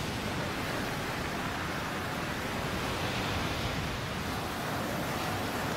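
Ocean surf breaking and washing over the shore: a steady rush of churning white water.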